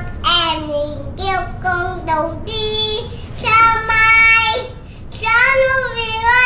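A young boy singing in a child's voice, with a long held note a little past halfway and a short breath pause just after.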